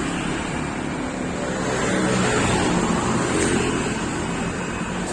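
Wind rushing over the microphone on a moving road vehicle, over a steady low engine and road rumble.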